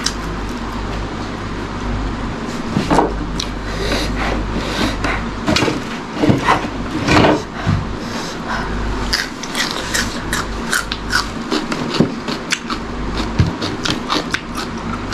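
Close-miked chewing and mouth sounds of a person eating by hand: wet smacks and crisp clicks that come thickly from about four seconds in, over a steady low hum.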